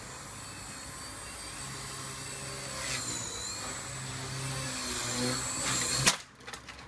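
Align T-Rex 250 DFC electric RC helicopter whining steadily in flight, its pitch dipping briefly about three seconds in and growing louder. About six seconds in comes one sharp crack, after which the whine cuts off: the helicopter crashing.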